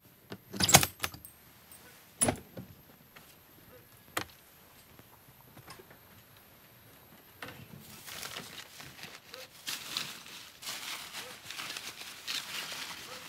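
A few sharp knocks and rattles as a metal-edged trunk is opened, the loudest about a second in. From about halfway on, paper wrapping rustles and crackles as hands rummage through the trunk.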